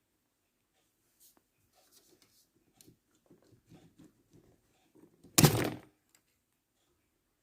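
Faint light clicks and rustles, then one loud thunk about five seconds in.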